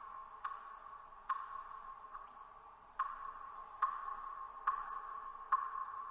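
Water dripping in a cave: drops falling at a steady pace, one main plink a little more often than once a second with fainter drips between, each ringing in the cave's echo.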